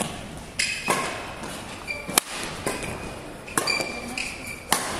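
Badminton rally: a string of sharp racket strikes on the shuttlecock, about one a second, the loudest a little past two seconds in, mixed with short high squeaks of shoes on the court floor.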